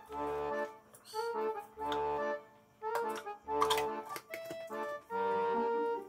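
Background music: short phrases of held reedy chords over a low note that comes back about every second and a half.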